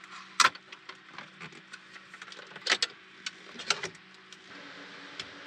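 Clicks and knocks of a folding table being set up, its metal legs fitted and its wooden boards laid down. There are three sharper knocks, the first about half a second in and two more near the middle, over a faint steady hum.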